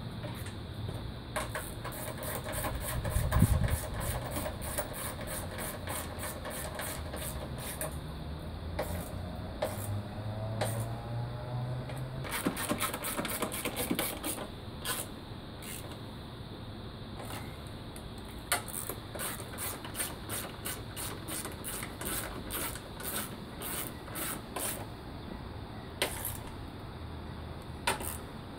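Socket ratchet wrench clicking in quick runs as bolts are turned down, with a dull thump about three seconds in.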